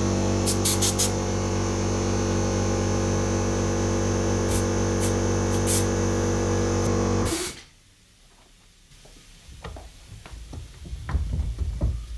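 Air compressor motor running with a steady hum while an air gun fires several short hisses of compressed air into a brake caliper to push its pistons out of their bores. About seven seconds in there is a last sharp burst and the compressor hum stops abruptly, followed by light metallic clicks and knocks of the bench vice being handled.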